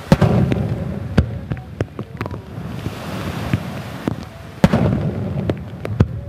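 Aerial fireworks bursting: a loud boom just after the start and another about four and a half seconds in, each trailing off in a low rumble, with scattered smaller pops between.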